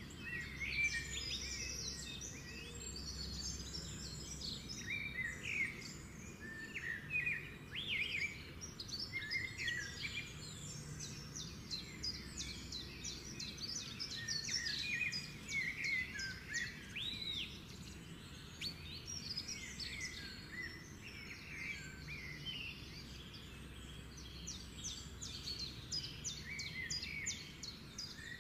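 Small birds chirping and twittering in a continual stream of short, quick calls, over a faint steady low hum.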